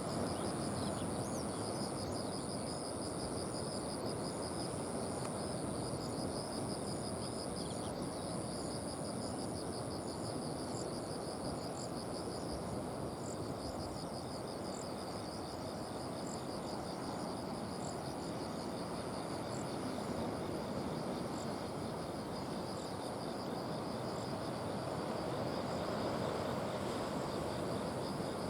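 Insects trilling steadily in high, pulsing tones, with a few short chirps, over a steady low rushing noise.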